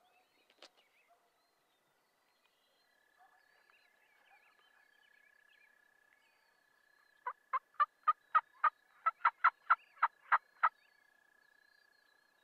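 A run of about fourteen turkey yelps, about four a second and speeding up slightly, starting some seven seconds in and lasting a little over three seconds.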